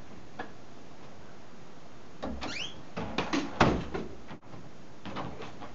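A bedroom door swinging shut: its hinge gives a short rising squeak about two seconds in, followed by a few knocks as the door closes and latches. A steady hiss runs underneath.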